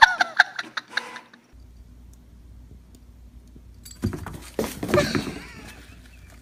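Inkjet printer feeding paper out, with a warbling mechanical whine and clicks, for about the first second. After a pause, scratching and rustling of a cardboard box as a cat jumps and paws inside it.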